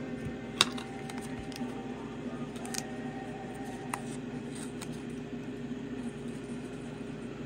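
Small handling noises as a cut-out waterslide decal and a hobby knife are handled: a few sharp clicks, the strongest about half a second in, and light paper sounds over a steady hum.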